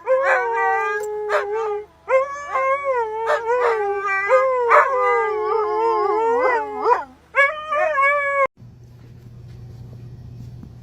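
A dog howling in long, wavering calls, in three stretches with short breaks, that cut off suddenly near the end; a low steady hum follows.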